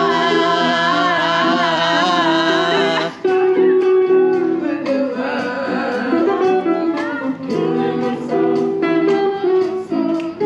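Live acoustic guitar playing, with a voice holding a long, wavering sung note for the first three seconds, then the guitar continuing alone.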